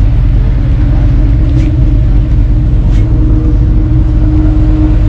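Motorcycle riding noise: a steady engine and road rumble heavily overlaid by wind buffeting the microphone, holding level throughout.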